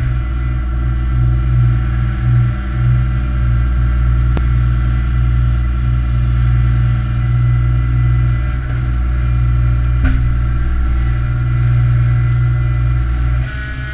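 Fishing boat's engine and hoisting gear running under load with a steady deep hum while a net bag of about 500 kg of fish is lifted aboard. The sound drops near the end.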